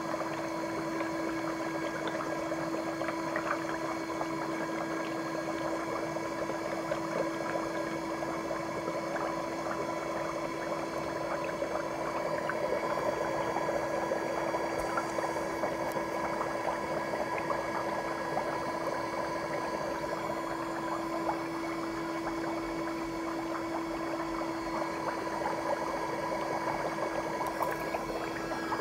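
Bubbling foot spa running: a steady motor hum under continuous bubbling and crackling of soapy water and foam.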